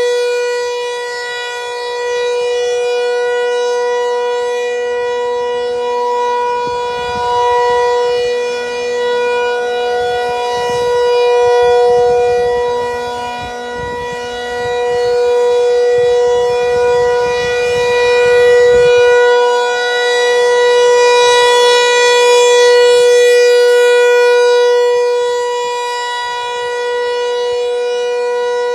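Federal Signal 508 dual-tone electromechanical outdoor warning siren sounding a steady alert tone during a test, its pitch holding level while the sound swells and fades every few seconds as the rotating horn sweeps past.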